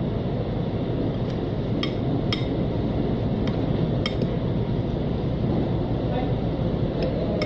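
Small tableware clinks as a man eats, about six light clicks spread through a few seconds, over a steady low rumbling background noise.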